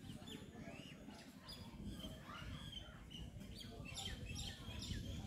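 Birds chirping, with short repeated calls and a few downward-sweeping notes, over a faint low rumble.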